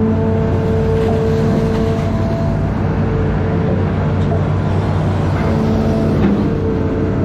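Amphibious excavator's diesel engine running steadily, with a higher whine that comes and goes several times.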